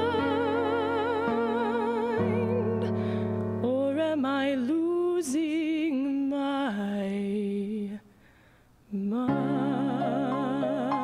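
A woman singing a slow ballad solo with vibrato on long held notes, over keyboard chords. About eight seconds in, voice and keyboard stop for about a second, then come back together.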